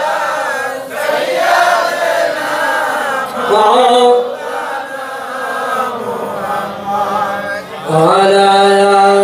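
Voices chanting a Bengali Sufi devotional song in praise of the Prophet and Allah, with long held, wavering notes; the singing swells louder near the end.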